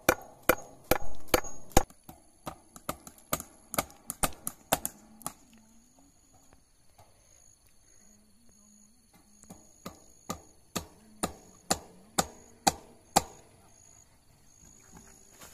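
Claw hammer driving fence staples into a wooden post to fasten barbed wire: a quick run of sharp strikes, about three a second, a pause of a few seconds, then another run of strikes.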